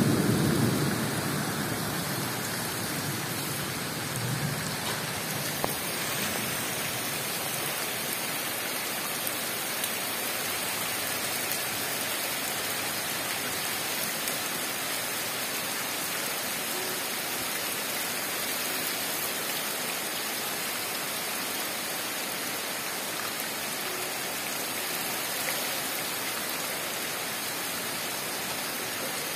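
Heavy tropical downpour on rainforest foliage: a steady, even hiss of rain. A low rumble fades away in the first second or so.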